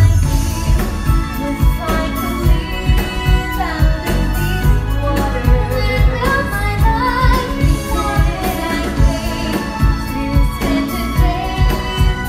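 Stage-show music played over a theatre's loudspeakers: a woman singing a melodic show tune over a steady beat and band accompaniment.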